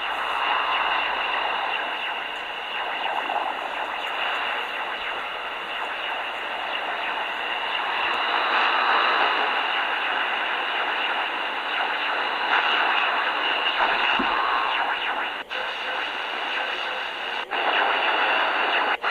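Grundig portable shortwave radio tuned to 4575 kHz, its speaker playing a steady, hissy noisy signal. The sound cuts out for an instant twice near the end.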